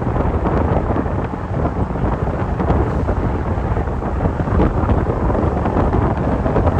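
Wind buffeting the microphone of a moving vehicle, a steady loud rumble mixed with road and engine noise.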